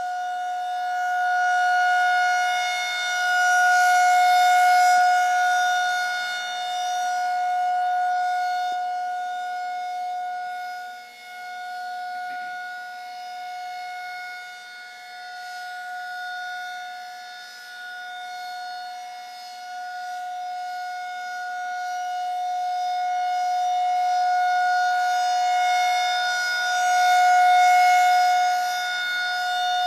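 Federal Signal 2000 outdoor tornado warning siren sounding at close range. It holds one steady pitch while its loudness swells and fades every few seconds.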